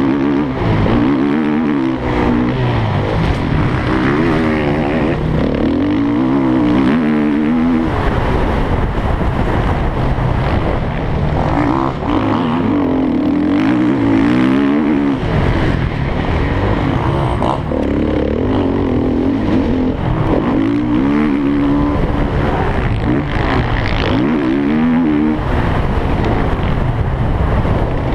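Motocross bike's engine heard from an onboard camera during a race, revs climbing and dropping over and over as the rider accelerates, shifts and backs off for corners and jumps.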